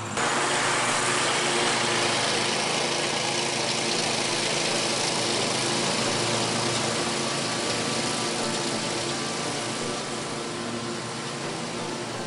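Scag zero-turn mower's engine and cutting deck running steadily while mowing, slowly getting fainter toward the end as the mower moves away.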